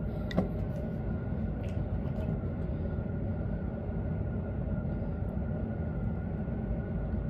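Steady low mechanical hum with a faint high whine running evenly underneath, unchanged throughout.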